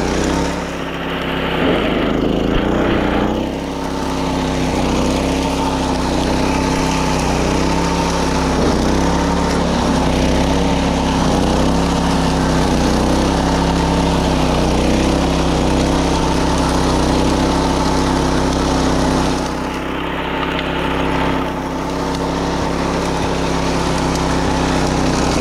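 A wing mower's engine running steadily while it cuts grass, its pitch wavering slightly as the load on the blades changes.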